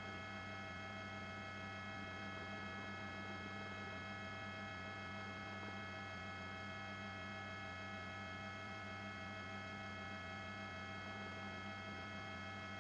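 Steady electrical hum on the audio line, a low buzz with a long row of even overtones reaching high up, unchanging throughout.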